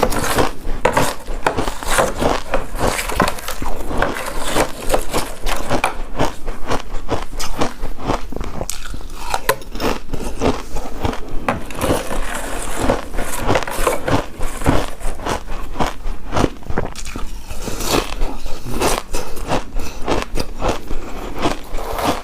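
Close-miked chewing and biting of a soft, chewy coconut-coated rice cake, a steady run of small irregular wet clicks and smacks.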